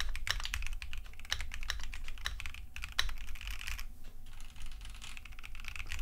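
Typing on a Keychron Q1 Pro mechanical keyboard with spherical keycaps and switches taken for linear: a quick run of keystrokes with two short pauses, about two and a half and four seconds in.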